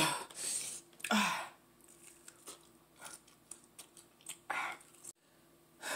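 Close mouth sounds of eating a chicken wing in hot sauce: biting and chewing in a few short, separate bursts, with a sharp click at the start.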